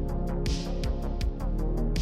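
Electronic background music with a steady beat: a drum beat with quick hi-hat ticks and sustained synth chords.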